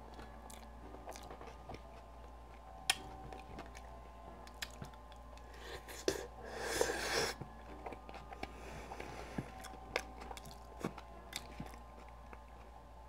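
Close-up chewing and biting of food: faint wet mouth clicks throughout, with a louder burst of mouth noise about seven seconds in as a forkful goes in.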